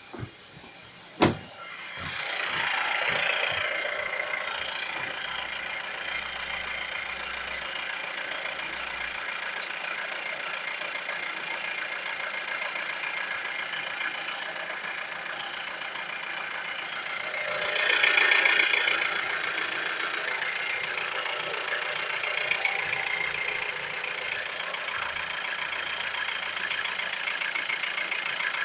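Car engine on freshly changed oil: a sharp click about a second in, then the engine starts and settles into a steady idle. It revs up briefly about two-thirds of the way through, then drops back to idle.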